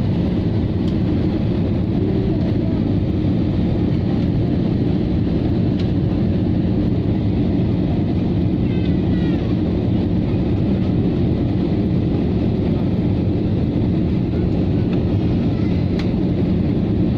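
Steady low mechanical rumble with no change in level, and a few faint short chirps about halfway through.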